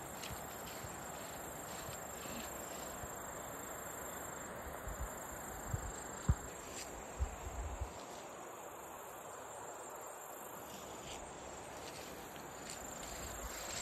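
Insects singing in a steady, thin, high-pitched tone over a steady outdoor background hiss, with a few soft low thumps about five to eight seconds in.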